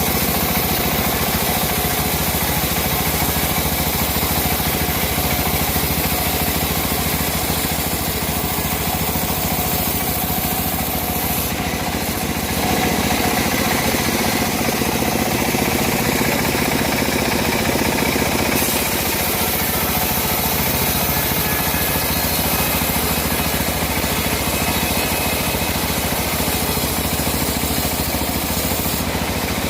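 Engine-driven homemade band sawmill running steadily, a little louder from about twelve seconds in.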